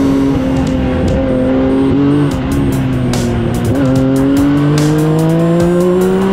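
Yamaha Viper snowmobile three-cylinder 1049 cc four-stroke engine, swapped into a Yamaha YXZ 1000R side-by-side, running under load on a trail, heard from inside the cab. The engine note holds fairly steady, dips briefly twice around the middle, then climbs steadily in pitch toward the end as the machine accelerates.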